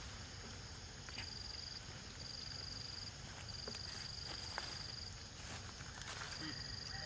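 Insects trilling in the undergrowth: a high, steady buzzing note that comes in separate bursts, each lasting from half a second to about a second and a half, with a few faint clicks in between.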